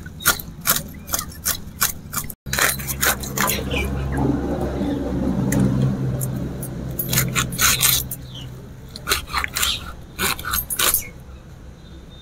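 Fish being scaled and cut against a floor-mounted boti blade: repeated short, sharp scraping strokes of the blade on scales and flesh. A low steady hum runs underneath for a few seconds in the middle.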